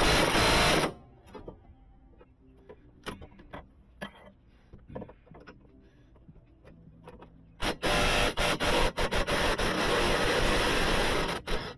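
Cordless power tool run briefly at the start, then again for about four seconds near the end in a stuttering run with short breaks, working a bolt during front-suspension disassembly. Scattered clicks and metal knocks come in between.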